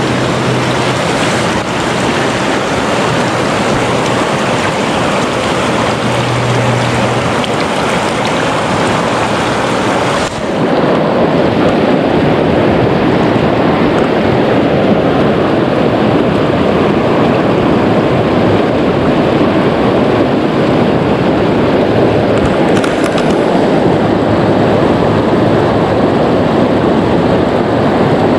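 River rapids rushing, a loud steady roar of white water. About ten seconds in it dips for a moment, then goes on slightly fuller and with less hiss.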